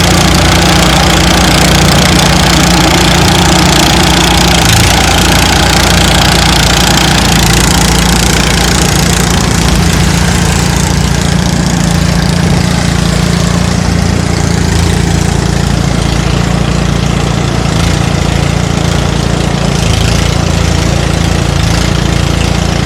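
Engine-driven rice threshing machine running steadily: a constant engine hum under a loud noisy rush from the threshing drum, the upper rush easing somewhat about halfway through.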